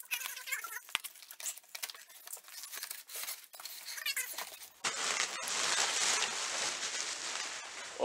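Utility knife slicing the packing tape on a cardboard box and the flaps being pulled open: a run of crinkling, scraping clicks. About five seconds in, a steady hiss with a low hum comes up.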